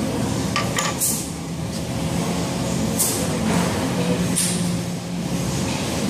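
A few short, high scraping sounds of metal on metal as a brake pad is worked out of the C7 Corvette's rear brake caliper with a pick or screwdriver. They come about a second in, again near three seconds and again near four and a half, over the steady hum of the shop's ventilation.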